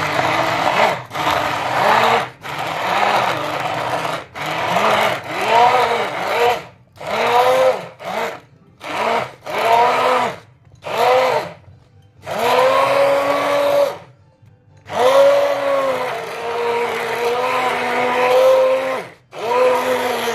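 Electric hand (immersion) blender puréeing chunky vegetable soup in a pot, switched on and off in short pulses. Each burst the motor's whine rises and drops back, and in the second half it runs for longer stretches of a few seconds.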